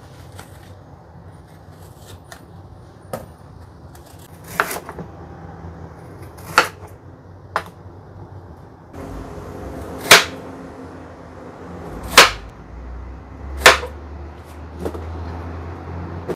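Kitchen knife cutting through firm fruit and knocking on a wooden cutting board: a handful of sharp single knocks, one every second or two, the loudest in the second half.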